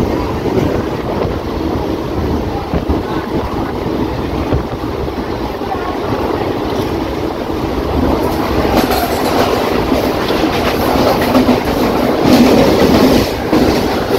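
Mumbai suburban EMU local train running at speed, heard from the open doorway: a steady rumble of wheels on the rails with a clickety-clack over the rail joints, growing louder and harsher about eight seconds in.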